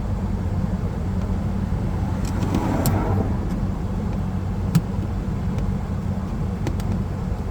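Steady low hum of the Nissan Pathfinder idling, heard inside the cabin. Over it come a few light clicks and a brief scrape about two and a half seconds in, as a knife blade is worked behind the rear-view mirror mount.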